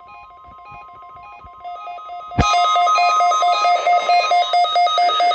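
Electronic test signal of a NOAA Weather Radio weekly test: a steady tone under rapidly pulsing, stepping tones that become much louder about halfway in.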